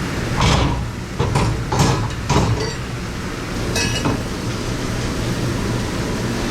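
Dishes and metal ware clinking and clattering as they are handled, about five knocks in the first four seconds, one ringing briefly. A steady mechanical hum runs underneath.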